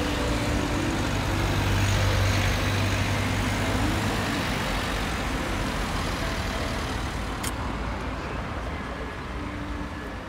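Street traffic: a motor vehicle passing close by, its low engine rumble and tyre noise loudest about two seconds in, then slowly fading. There is one sharp click about seven and a half seconds in.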